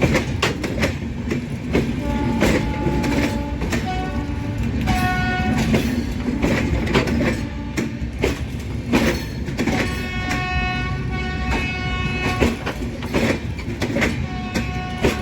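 Express train running on the track, its wheels clattering over rail joints in irregular clicks over a steady rumble. Its horn sounds several times, with the longest blast about ten to twelve seconds in.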